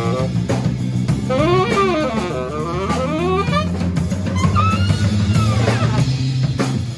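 Live jazz band playing: a saxophone plays two phrases of arching, sliding notes over electric bass and drums.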